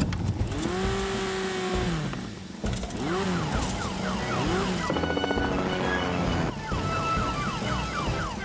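Cartoon emergency siren on a fire-rescue quad bike, wailing up and down in pitch several times. It sounds over orchestral background music with quick runs of falling notes.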